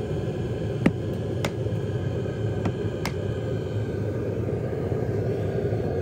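2 kW diesel air heater running steadily inside a closed, insulated hard case: a low, even hum from its blower and burner, with the fuel pump barely heard. A few short, sharp clicks come in the first half, the loudest about a second in.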